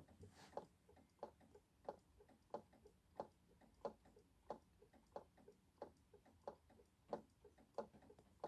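Gold maneki-neko waving cat's arm mechanism ticking faintly and steadily, about three clicks every two seconds with softer clicks in between. This ticking is the noise the cat's waving drive makes whenever it runs.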